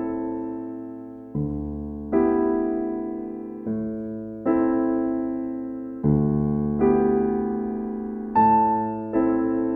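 Slow electric piano music: sustained chords struck about once a second, each fading away before the next.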